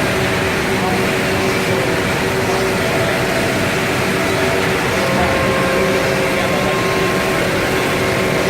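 Anderson Stratos Pro CNC router running steadily: a machine noise with several steady whining tones over a broad hiss, as of the spindle and extraction at work.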